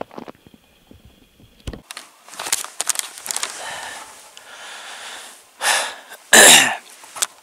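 A man breathing hard close to the microphone: a run of heavy, wheezy breaths, the loudest two near the end, with a single low thump about two seconds in.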